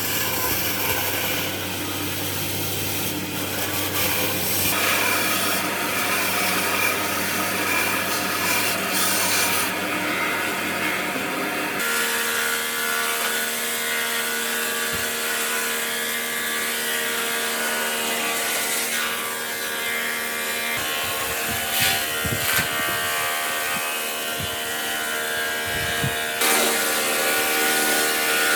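Power tools working wood, a motor running steadily with grinding and rubbing against the wood. The sound changes abruptly about five seconds in, again about twelve seconds in, and once more near the end.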